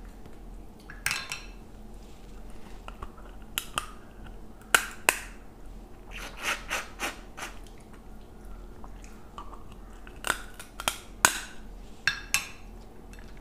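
Cooked crab shell cracking and crunching as the crab is broken apart by hand and bitten, about a dozen sharp snaps in small clusters, the loudest about five seconds in and again near the end.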